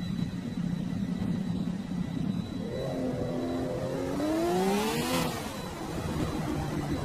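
Car engine sound effect, likely from an electronic toy or added to the video: a steady low engine hum, then the engine revving up with a rising whoosh from about three to five seconds in, before settling back to the hum.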